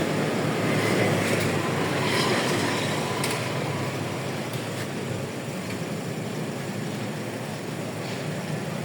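Steady vehicle and road noise, an even rumble with a low hum, easing off slightly over the stretch.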